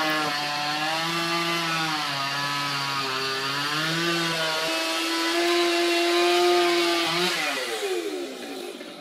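Two-stroke chainsaw running at high revs, its pitch dipping and rising as the cut loads it. About seven seconds in the throttle is released and the revs fall away.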